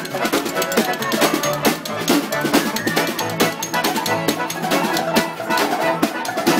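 Live band playing a pop-rock cover, a drum kit keeping a steady beat under the other instruments.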